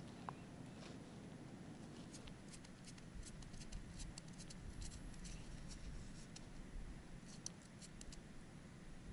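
Faint, scattered light clicks and scratches, several a second, from about two to eight seconds in, with a quiet steady background under them: small handling noises while jigging an ice-fishing rod over the hole.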